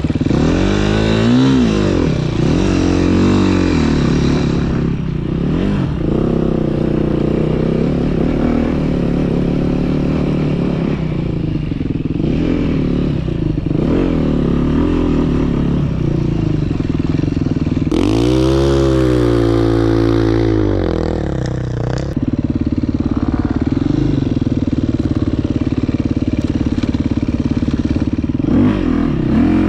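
Dirt bike engine heard from on board, its pitch rising and falling again and again as the throttle is worked. There is one long, high rev and drop about two-thirds of the way through.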